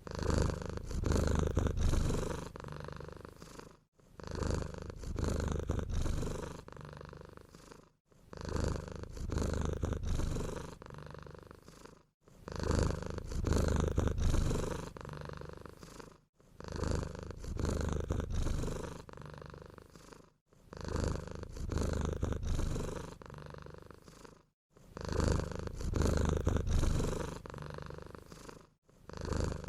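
A sleeping cat snoring with a purr-like rumble, one breath about every four seconds: a louder stretch of about two seconds, a softer one, then a brief pause.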